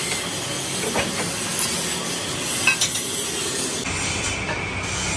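Steady workshop machinery noise with a few sharp metal clinks and taps as sheet steel is handled at a plate-rolling machine, the loudest a little under three seconds in. The background noise changes abruptly near the end.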